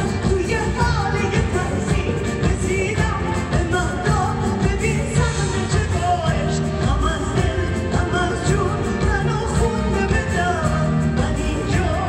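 A woman singing a Persian pop song live into a microphone, backed by a band with drums, bass guitar and keyboards, heard from the audience through the venue's sound system.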